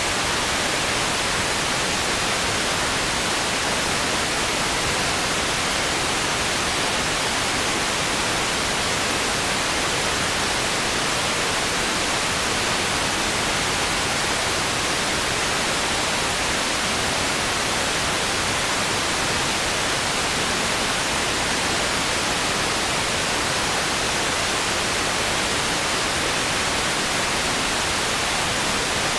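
Steady, even static hiss at a constant level, with no other sound in it.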